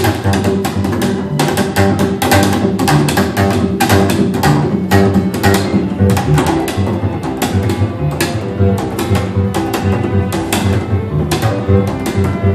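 Handmade double bass, René Zaal and Roger Hargrave's copy of a Girolamo Amati II bass, played pizzicato: a quick, unbroken stream of plucked notes, several a second, with the low strings ringing under each attack.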